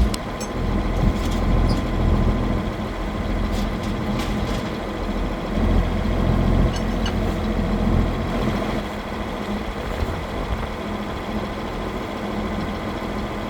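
Farm tractor diesel engine running steadily, a low even rumble, with a few faint light rattles.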